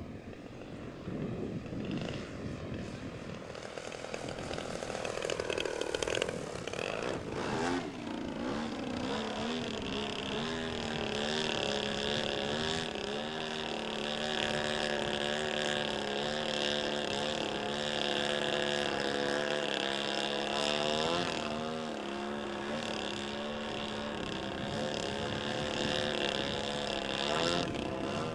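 RC MXS aerobatic plane's engine and propeller: a pass with the note dropping in pitch about seven seconds in, then a steady, slightly wavering engine note as the plane hangs nose-up on its propeller.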